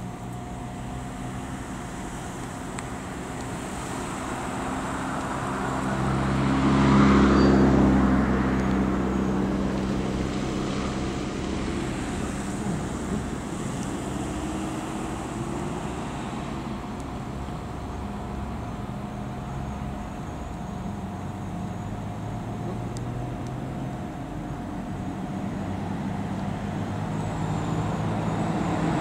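Road traffic with a steady engine hum. One vehicle passes, loudest about seven seconds in, then fades.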